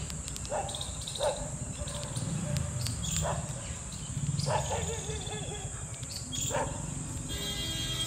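Short animal calls repeating every second or two, each dropping in pitch, over a steady high hiss, with a longer held call near the end.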